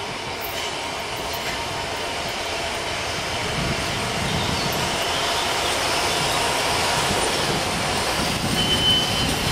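Class 52 freight steam locomotive 52 8038 running toward the listener on the track, its running noise growing steadily louder. A brief high squeal comes near the end.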